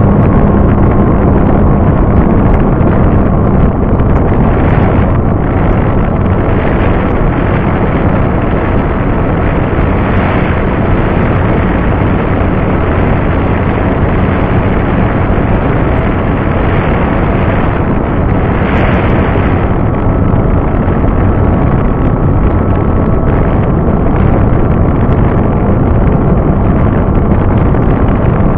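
Effe Lite 15e RC model airplane in flight, heard from a camera mounted on it: loud wind rushing over the microphone, with a steady hum from the motor and propeller.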